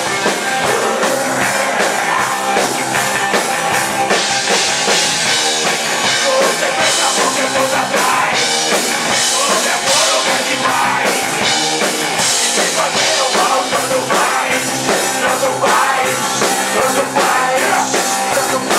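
Live rock band playing a song, loud and continuous, with drums and cymbals driving it.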